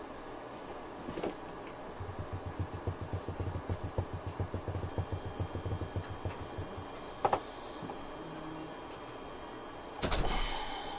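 PTZ camera's pan-tilt motors running with a rapid low pulsing for a few seconds as the camera restarts to apply an image flip. There is a single knock about seven seconds in and a louder bump near the end.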